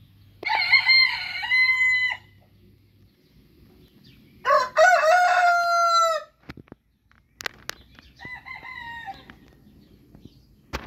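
Orpington and Marans roosters crowing in turn: three crows, the first about a second in, the second the loudest, and the third near the end fainter and shorter.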